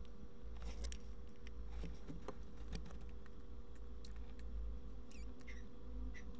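Faint scattered clicks and light scratching over a steady low hum.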